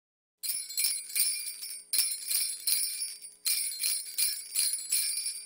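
Sleigh bells shaken in a steady rhythm, about three shakes a second, as the solo intro of a Christmas pop song. They start about half a second in, with two short breaks.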